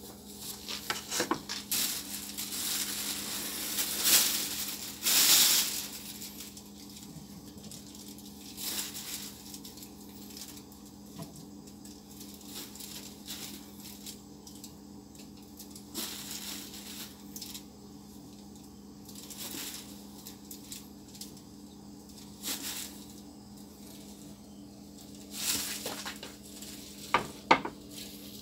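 Crinkly rustling of a plastic bag being handled next to a metal can. It comes in bursts, loudest a few seconds in, then turns to occasional short rustles and a few sharp clicks near the end, over a steady low electrical hum.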